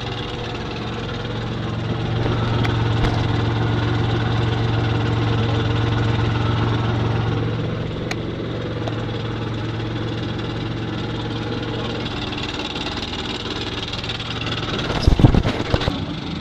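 Off-road 4x4's engine idling steadily, a little louder for several seconds. A few sharp knocks about fifteen seconds in.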